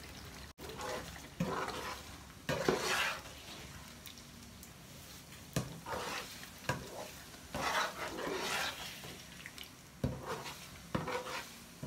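A cooking spoon stirring thick tomato stew in a frying pan, with irregular scrapes and knocks against the pan, over the faint sizzle of the stew frying.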